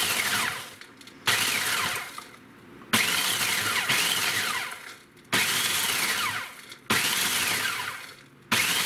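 Food processor pulsed on and off about five times, grinding chocolate sandwich-cookie wafers into crumbs. Each pulse is a second or two of motor whine that rises and then falls in pitch, with the cookie pieces rattling in the bowl.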